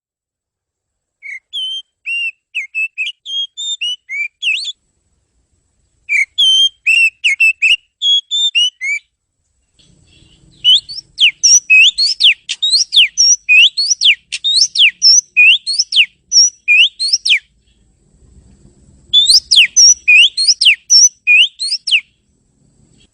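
Oriental magpie-robin (kacer) singing in four bouts of fast, high whistled notes that sweep up and down, with short pauses between them. The third bout is the longest and loudest.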